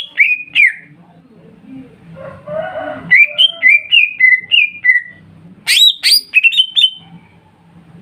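Cucak ijo (greater green leafbird) song: loud, clear whistled notes, with a run of about six slurred notes stepping down in pitch from about three seconds in, then sharp upward-swept whistles near six seconds. A harsher, rasping call comes just before the falling run.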